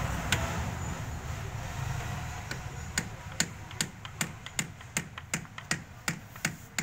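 Hammer blows on a steel drift against the gear-shift mechanism of a Sonalika Tiger tractor's gearbox: sharp metallic taps, about two and a half a second and evenly spaced, from about three seconds in, with a single blow just before.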